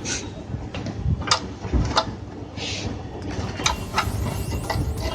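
Scattered small clicks and light knocks, with a short scrape about halfway through, as wire connectors are pulled off an inverter's main circuit board.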